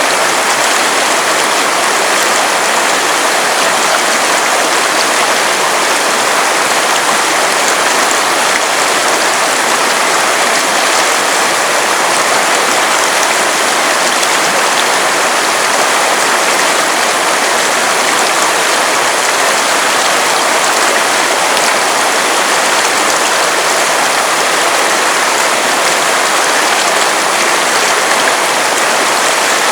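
River water running steadily, a loud, even rush of flowing water with no breaks or separate events.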